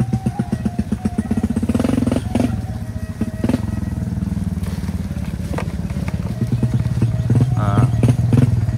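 Motorcycle engine running at low speed on a slow descent over a muddy, rutted track, with a steady low hum. Several sharp knocks and rattles come from the bike jolting over the ruts.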